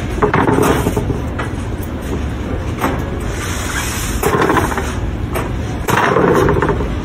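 Wooden boards sliding and bumping against each other and the metal lumber cart in three short bouts (about a second in, past the middle and near the end), over a steady low hum.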